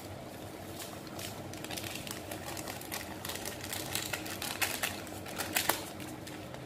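A pot of sinigang soup boiling, with irregular bubbling pops and crackles over a low steady hum. The pops grow busier in the middle.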